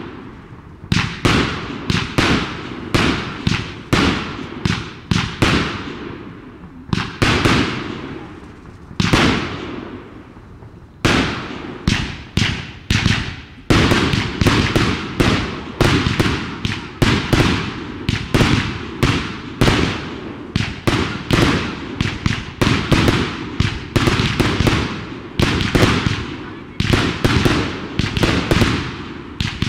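Aerial fireworks bursting in quick succession, a sharp bang every half second to second, each with a short crackling tail. The bursts thin out briefly about ten seconds in, then pick up again.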